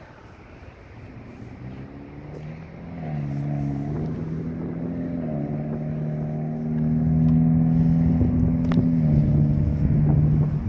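A motor engine running steadily. It comes in faintly, grows louder about three seconds in and again about seven seconds in, and its pitch steps up and down a few times.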